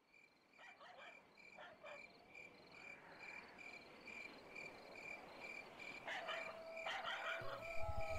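Night ambience fading in: an even, high-pitched chirp repeating about two or three times a second from a night-calling animal, with a few faint clicks. Near the end a long, slightly falling howl-like tone starts.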